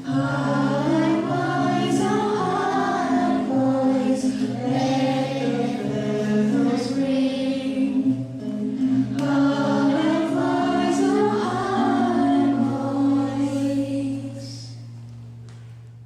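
Background music: a choir singing over sustained low notes, fading out over the last couple of seconds.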